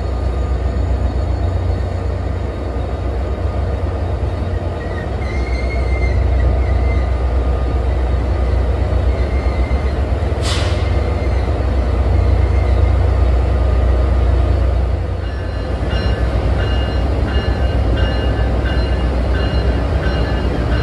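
NJ Transit diesel locomotives idling at a platform with a steady low hum. A brief sharp hiss comes about halfway through. From about three-quarters of the way in, a high ringing tone repeats evenly, about once or twice a second.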